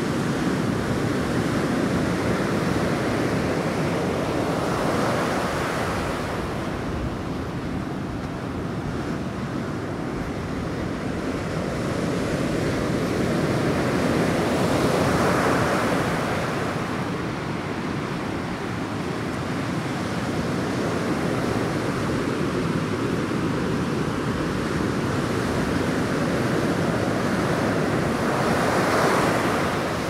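Ocean surf breaking and washing up on a beach as a continuous rushing hiss. It swells three times as waves break: about five seconds in, midway, and just before the end.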